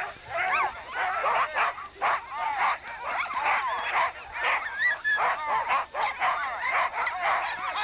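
Many sled dogs barking and yelping at once, short overlapping calls with no break.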